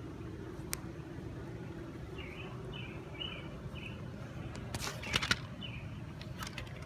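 Outdoor night ambience: a steady low hum, a few short chirps about two to three seconds in, and a brief burst of rustling crackles about five seconds in.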